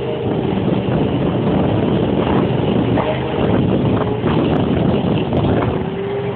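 Jet boat under way at speed: engine and jet drive running steadily under a dense rush of water and wind noise.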